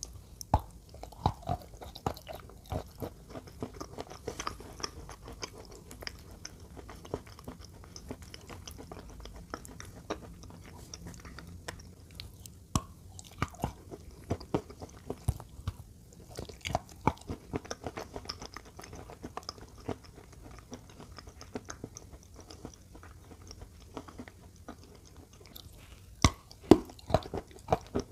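Close-miked eating: a person biting and chewing a hard white block coated in wet brown paste, with irregular sharp crunches and a run of the loudest bites near the end.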